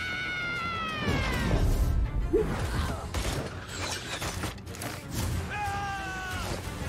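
Soundtrack of an animated fight scene: a woman's long shout falling in pitch at the start and a shorter held cry later, over action music with crashes and impacts.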